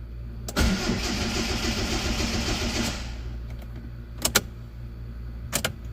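2001 Hyundai Accent's engine being cranked by the starter motor for about two and a half seconds, in a fast even rhythm, without catching. This is the crank-no-start fault: the scan tool reports injector circuit low codes on all four cylinders and a fuel pump primary circuit code. Two sharp clicks follow near the end.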